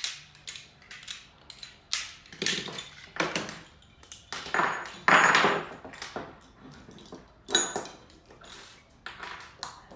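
Glock pistols being taken apart by hand: a run of sharp metal clicks and clacks as the slides, springs and small parts are worked loose and set down, with a longer scraping sound about five seconds in.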